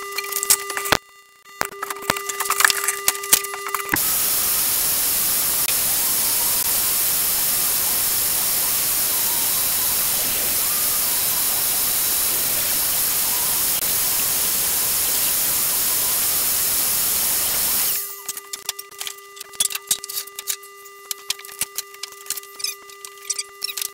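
Knocks and clatter of rubbish being cleared, then a vacuum cleaner runs with a loud, steady hiss for about fourteen seconds, switching on abruptly a few seconds in and cutting off abruptly, followed by more scattered knocks.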